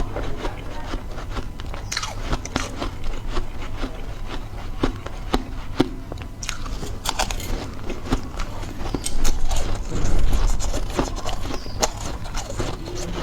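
Close-miked crunching of ice being bitten and chewed, with many crisp crunches in a row. The crunching is loudest and densest a little past the middle.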